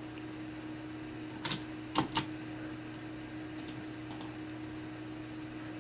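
A few sharp clicks from someone operating the computer, the loudest about two seconds in, over a steady low hum.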